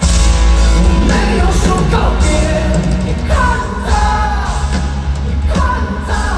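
Live rock band playing loud: the full band comes in suddenly after a quiet sustained passage, with heavy drums and bass and a gliding melody line over them.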